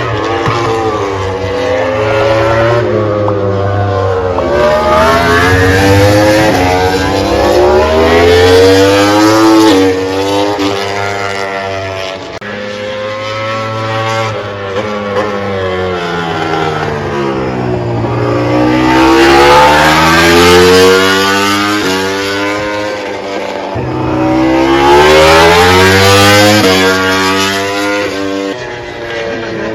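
MotoGP racing motorcycles at full throttle, engines revving hard and climbing through quick upshifts, then dropping in pitch through downshifts as they brake, in several waves.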